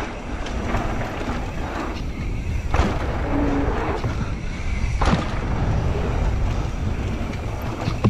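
Mountain bike rolling fast down a dirt trail: steady tyre rumble and wind on the microphone, with a few sharp knocks from the bike.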